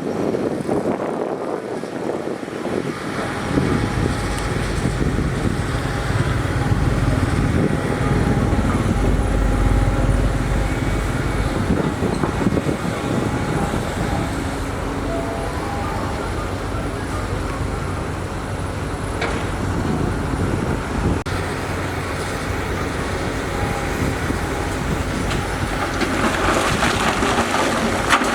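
Heavy earth-moving machinery engines running steadily, with a brighter, louder stretch near the end.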